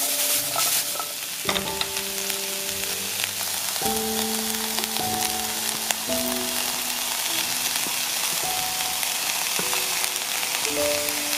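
Chickpeas, plant-based mince and onion sizzling in a non-stick frying pan as they are stirred with a spatula, with a few sharp knocks of the spatula against the pan. Soft background music with slow held notes plays underneath.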